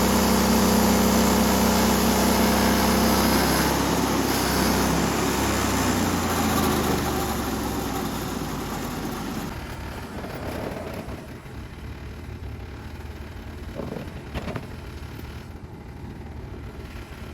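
A portable sawmill's gas engine runs steadily, then slows and winds down to a stop about six to ten seconds in. After it stops there are a couple of faint knocks.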